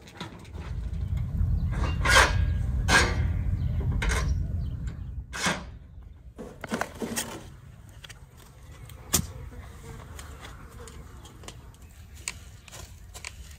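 Two-wheeled metal wheelbarrow pushed over tilled dirt: a low rumble of its rolling wheels with metal clanks and rattles for the first five seconds, then quieter scattered clicks and one sharp knock about nine seconds in.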